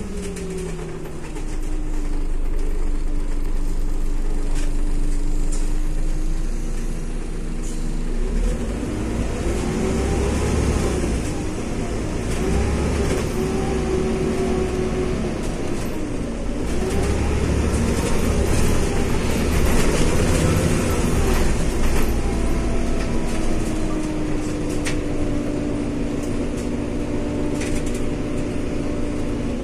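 Scania OmniCity city bus heard from inside the passenger cabin while under way: engine and driveline whine falling as the bus slows, then repeatedly rising and falling in pitch through the middle as it pulls away and changes speed, with a steady whine again near the end. Low road rumble and light interior rattles run underneath.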